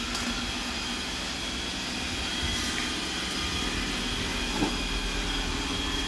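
iRobot Roomba 961 robot vacuum running while it cleans: a steady hum of its suction motor and brushes with a faint high whine, and a light knock about four and a half seconds in.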